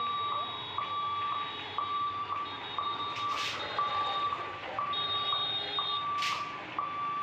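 Railway level-crossing warning alarm sounding an electronic beep about once a second, signalling that the gate is closed for an approaching train. Two short hisses come in, about three and six seconds in.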